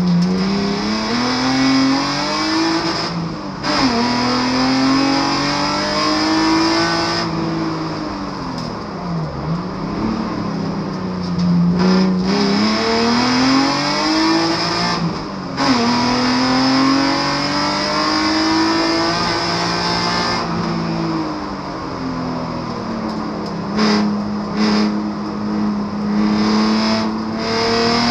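BMW Compact race car's engine heard from inside the cabin, driven hard. Its pitch climbs under throttle, drops sharply at upshifts a few times, and falls away twice as the driver lifts off before rising again.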